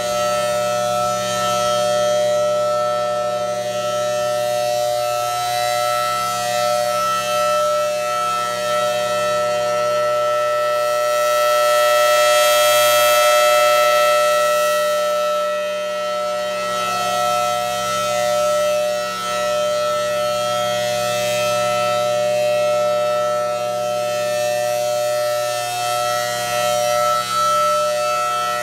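Federal Signal Thunderbolt 1000T rotating outdoor warning siren sounding a steady multi-tone chord at full power, not a single tone. The chord swells to its loudest about halfway through as the turning horn faces the listener, then eases off.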